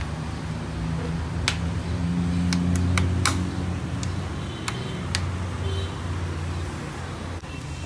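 Plastic latch clips on a car's air filter housing being snapped shut, about seven sharp clicks, over a steady low hum.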